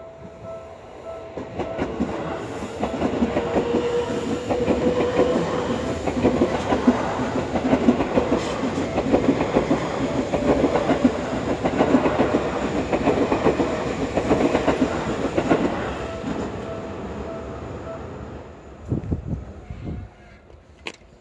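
Electric commuter train passing close by, its wheels clattering rhythmically over the rail joints; it builds up about two seconds in, holds loud, then fades away near the end. A level-crossing warning bell dings steadily at the start and carries on faintly under the train.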